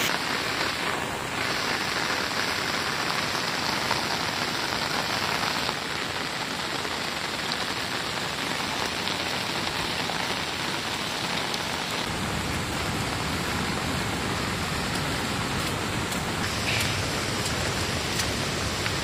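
Rain falling steadily, an even hiss of drops on the surroundings.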